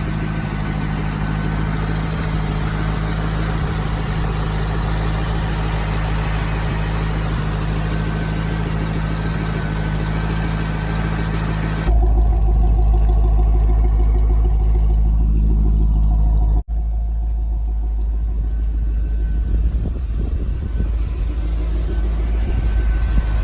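Pontiac GTO's V8 engine running steadily at idle. Partway through, the sound shifts abruptly to a deeper, louder rumble with a brief dropout a few seconds later, as between two recordings of the same engine.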